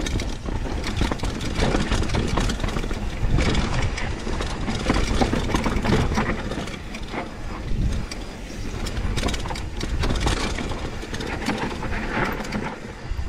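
Mountain bike rolling down a rough dirt trail: tyres on dirt and stones and the bike rattling and knocking over bumps, over a steady low rumble of wind on the microphone.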